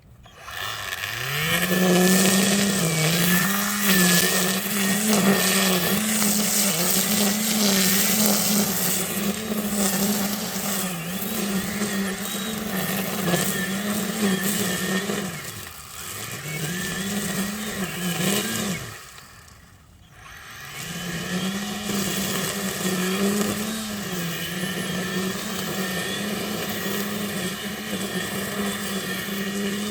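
EGO 56V battery string trimmer spinning up and cutting through overgrown grass and weeds, a steady high motor whine that sags and wavers as the line hits thick growth. About 15 s in it dips, and near 19 s the motor winds down to a stop, then spins back up and keeps cutting.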